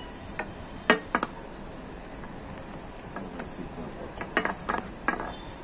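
Sharp metallic clinks and taps from small metal objects being handled: a few about a second in, then a quicker cluster between about four and five seconds in, over steady background noise.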